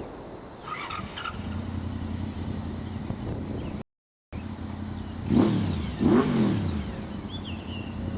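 Honda VFR750F V4 motorcycle with a Yoshimura slip-on exhaust: a steady low engine hum, then after a brief cut the bike passes close under acceleration. Two loud surges about a second apart, each falling in pitch as it goes by.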